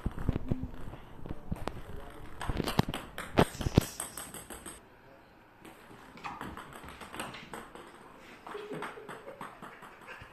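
Ping pong ball clicking and skittering across a hardwood floor as a cat bats and chases it: a quick, irregular run of sharp taps for about four seconds, then much quieter.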